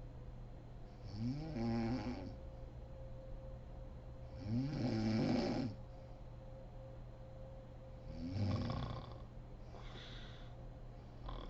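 A sleeping woman snoring: three long, rough snores about three and a half seconds apart, each rising and then falling in pitch, with a softer breath out near the end.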